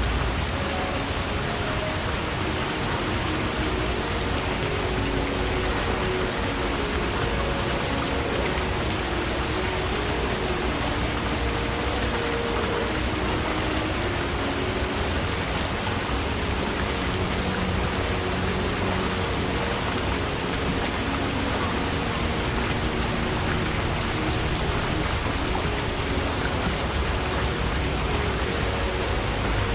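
Forest stream flowing: a steady rush of water with short, low bubbling notes throughout.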